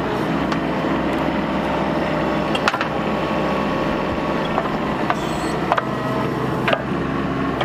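Bobcat mini excavator's diesel engine running steadily under work, with several sharp knocks or cracks a few seconds apart as the machine works at a mesquite tree.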